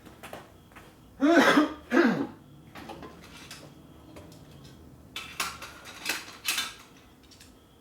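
A man clears his throat with two short coughs about a second in. A few seconds later comes a brief run of sharp metallic clatters, like hand tools being handled.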